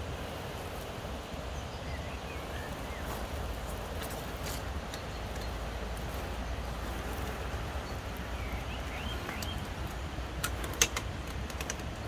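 An RC scale crawler creeping through undergrowth over leaf litter and twigs: a steady low rumble with scattered light crackles and clicks, and one sharp click near the end. Birds chirp briefly a few times.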